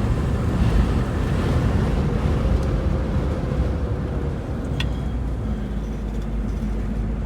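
1964 Ford Thunderbird's V8 engine humming steadily, with tyre and wind rush, heard from inside the cabin while cruising. A single faint click sounds about five seconds in.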